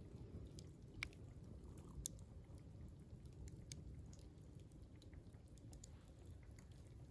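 Near silence: a faint low rumble with two sharp clicks, about a second in and about two seconds in.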